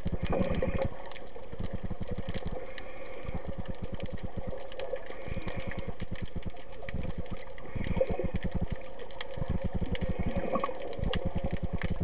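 Underwater sound picked up by a snorkeler's camera: a rapid low pulsing that comes and goes in stretches of about a second, with a faint hiss returning every two to three seconds.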